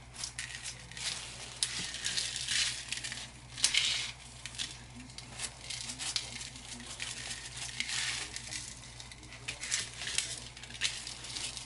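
Gloved hands rubbing a dry seasoning rub into a raw whole chicken and turning it on a plastic cutting mat: irregular rustling, crinkling and scraping, with a louder scrape about three and a half seconds in.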